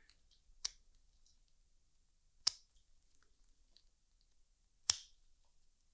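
Small handheld dog nail clippers snipping through a dog's toenails: three sharp clips about two seconds apart, the last two the loudest.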